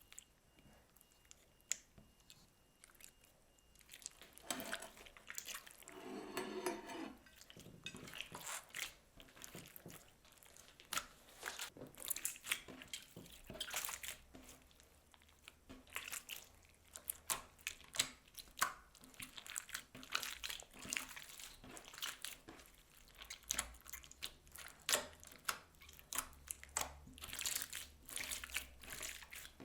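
Hands kneading and squishing slime mixed with floam beads, giving irregular crunchy crackles, wet clicks and pops, with a short squelch about six seconds in.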